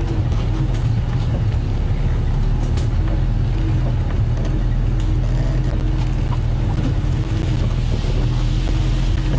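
Safari vehicle's engine idling steadily, a constant low hum.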